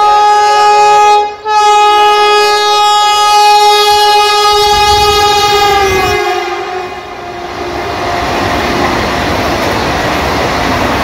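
Vande Bharat Express sounding its horn in a long, loud blast, broken for an instant about a second and a half in and falling slightly in pitch as it ends about six seconds in. Then comes the steady rushing and wheel noise of the train running through the station at high speed without stopping.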